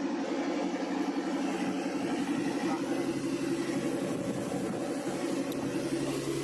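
Motorboat engine running steadily underway, a constant low drone, with the wash of water along the hull.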